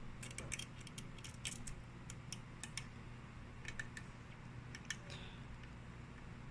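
Faint, irregular small clicks and ticks of a screwdriver and a small screw being worked into a laptop's battery mount, clustered over the first three seconds with a few more after about four seconds.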